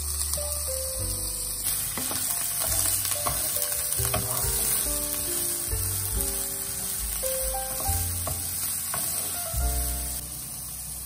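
Diced yellow bell pepper and garlic sizzling in oil in a frying pan, with a wooden spatula scraping and clicking against the pan as it is stirred. Background music plays underneath.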